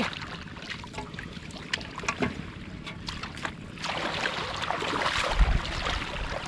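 Shallow water splashing and sloshing, stirred by hands or legs working through a flooded field, with scattered small splashes that get busier and louder about four seconds in.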